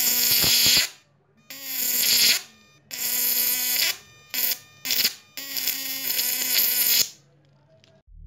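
High-voltage arc from a 12 V-to-1200 V electric-fishing inverter's output wires, buzzing loudly with a hiss in about six stop-start bursts as the arc is struck and broken; the last burst is the longest, about a second and a half.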